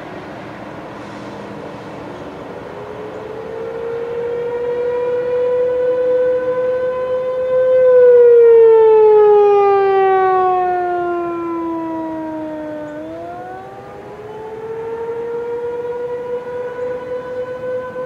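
Outdoor warning sirens sounding the attack signal, led by the nearest, an ASC T-128: a slow wail whose pitch rises, falls for about five seconds from about 8 s in, then rises again. A fainter second siren wails at a lower pitch underneath, and the sound swells loudest about halfway through.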